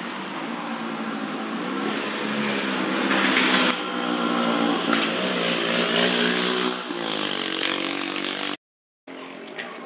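An engine running close by, growing louder through the middle, its pitch dropping about seven seconds in. The sound cuts out for half a second near the end.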